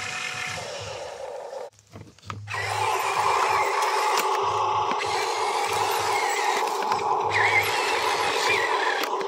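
Huina RC dump truck's small electric drive motor and gearbox whining as it drives over dirt, the pitch wavering up and down; it starts after a brief drop about two seconds in.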